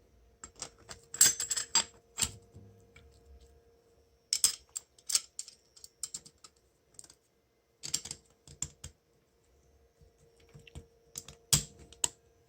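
Clutch plates from a Mercedes 722.6 automatic transmission's clutch pack clicking and clattering as they are handled and set down, in four short clusters of sharp metallic clicks. The friction plates are burnt through by coolant-contaminated fluid.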